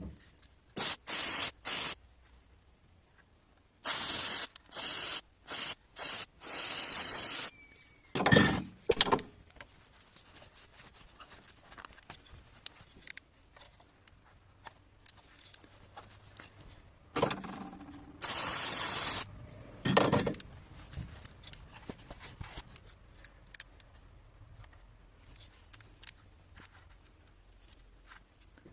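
Aerosol cleaner spray hissing in short bursts, about six quick squirts in the first several seconds and one longer one later, used to clean a camshaft position sensor. Scattered knocks and clicks of handling sound between the bursts.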